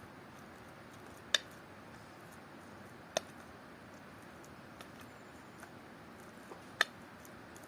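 Fabric scissors closing with three sharp clicks, spread a couple of seconds apart, each with a short metallic ring, plus a few fainter ticks, while cloth is cut.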